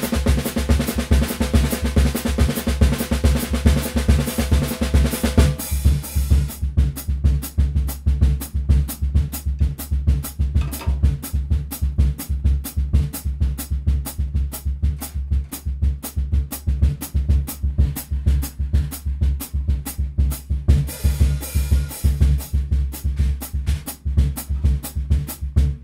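Steady drum-kit groove with a deep bass pulse, its strokes evenly spaced throughout. A fuller layer of sustained tones drops out about five and a half seconds in, leaving the drums and bass.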